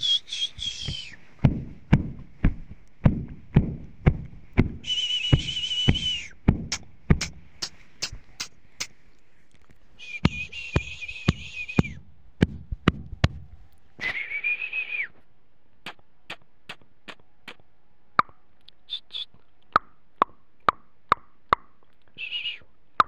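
Repeated whistle blasts, each a steady high note lasting a second or so, the one at about 14 seconds sagging in pitch as it ends, with short chirps near the end. Sharp clicks run throughout, with low thumps through the first few seconds.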